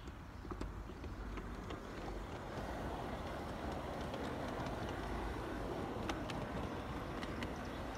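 Garden railway train rolling along the track, a steady rumble and rattle of wheels on rails that grows louder over the first couple of seconds as it picks up speed, with scattered sharp clicks.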